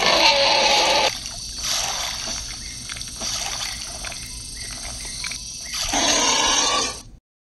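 Water sound effect: a hissing trickle of water. It is louder in the first second and again near the end, quieter in between, and cuts off suddenly.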